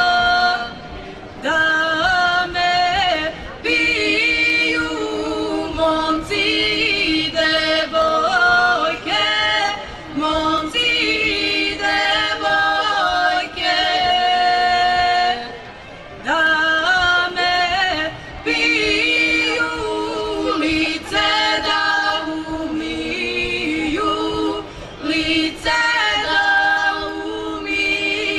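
Women's folk vocal group singing Serbian traditional song a cappella, several voices together in held phrases broken by short pauses for breath.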